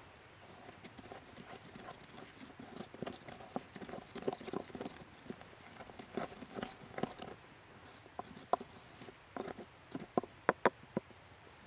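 Wooden pestle pounding and grinding green herbs in a wooden mortar: a dense, irregular run of short wooden knocks, then a few louder, separate knocks near the end.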